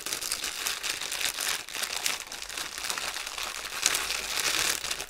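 Clear plastic bag crinkling and crackling as hands handle it and work through the small bags of diamond painting drills inside. It keeps up steadily with many small crackles, then dies down right at the end.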